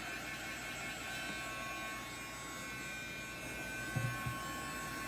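A steady electrical hum with a faint high whine, and a soft bump about four seconds in.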